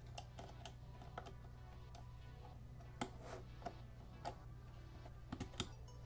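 Light scattered clicks and taps of laptop-style DDR3 RAM sticks being handled and pressed into the memory slot of a 2012 Mac Mini, with a quick cluster of clicks near the end. Quiet background music plays underneath.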